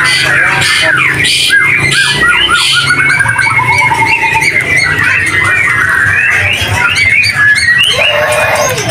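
Caged white-rumped shamas (murai batu) singing: a dense, unbroken mix of quick whistles, chirps and trills from several birds at once, with a run of rapidly repeated notes a few seconds in.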